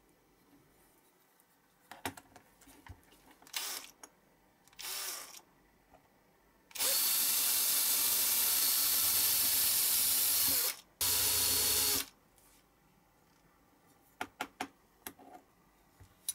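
Hand-held cordless drill running, drilling into the rivet area of a small diecast metal toy car body. It runs in two spells, about four seconds and then about one more second after a short pause. Light clicks and taps of small metal parts and tools being handled come before and after.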